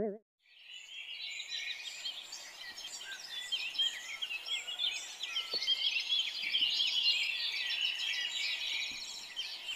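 A chorus of many small birds chirping and twittering at once, a dense overlapping stream of short, high chirps. It starts about half a second in.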